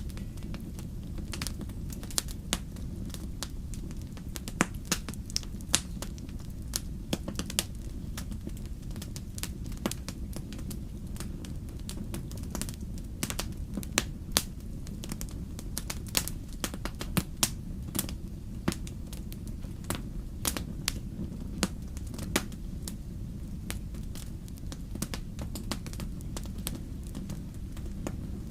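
Wood fire in a fireplace crackling: irregular sharp pops and snaps, several a second, over a steady low rumble of the burning fire.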